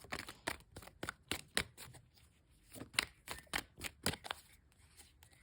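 Tarot cards being shuffled by hand: a run of quick, irregular crisp card clicks, a few of them louder.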